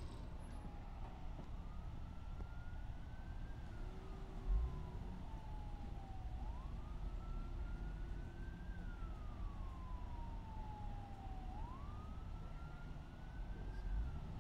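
Emergency vehicle siren wailing, its pitch rising quickly and then falling slowly in a cycle that repeats about every five seconds. A steady low rumble runs underneath, and a single dull thump comes about four and a half seconds in.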